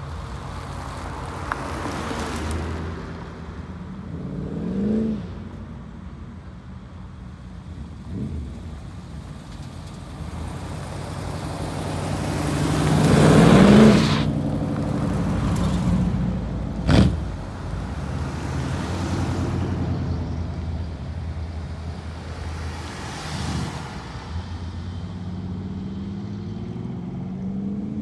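Show cars driving out one after another, engines running and revving as each pulls away and passes; the loudest pass comes about halfway through. A few seconds later there is a single brief sharp bang.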